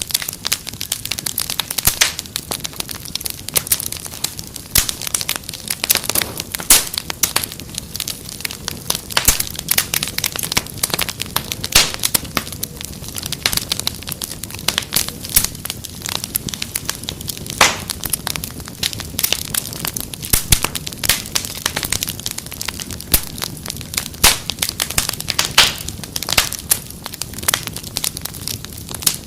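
Wood fire crackling steadily: dense, irregular pops and snaps over a constant low hiss.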